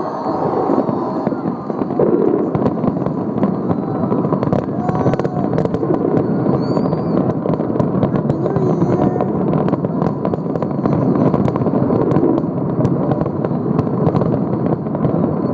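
A fireworks display crackling and popping, with many sharp reports over a dense, continuous din that carries voices from a crowd.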